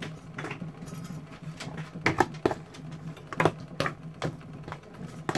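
Irregular clicks and taps of kitchen handling, mostly a metal fork tapping and scraping in a plastic tray while raw chicken is mixed with salt, pepper and seasoning. A steady low hum runs underneath.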